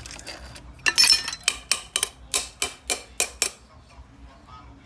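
A run of about ten quick metallic strokes, roughly four a second, from a hand tool striking or scraping metal; the first, about a second in, are the loudest.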